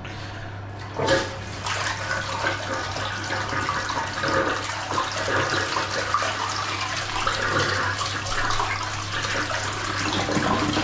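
Toilet cistern with a freshly replaced flush siphon being flushed: a sudden start about a second in, then water rushing steadily into the bowl.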